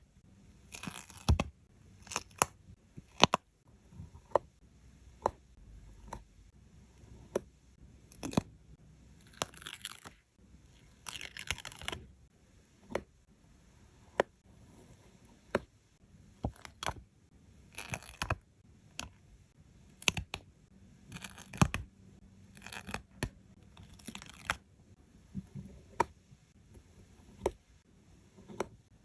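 Stickers being peeled off their backing sheet with a short papery rasp several times, between many small sharp taps and clicks as they are pressed and placed.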